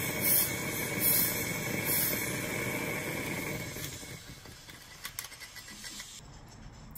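Homemade pump-fed gas torch blowing a flame out of a steel tube, a rushing roar that surges about once a second with each stroke of the air pump, then dies down to a quieter hiss over the last few seconds.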